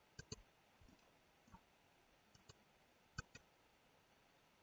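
Faint clicks of a computer mouse and keyboard, a few short clicks scattered over near silence, the sharpest a pair about three seconds in.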